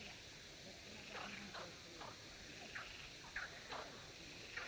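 A chorus of male frogs croaking: short calls, each dropping in pitch, overlapping one another at irregular intervals.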